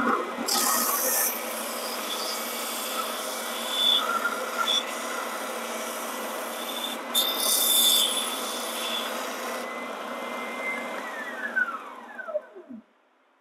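WEN 6524 oscillating belt sander running with an 80-grit belt, a steady motor whine, as a pine board's edge is pressed against the belt and rounded over. Hissy sanding scrapes come about half a second in and again around seven seconds. Near the end the motor is switched off and its whine falls as it winds down.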